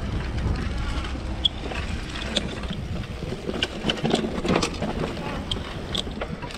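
Riding noise from an electric mountain bike on a sandy dirt trail: wind buffeting the microphone and the tyres rumbling over the ground, with scattered clicks and rattles from the bike jolting over the trail.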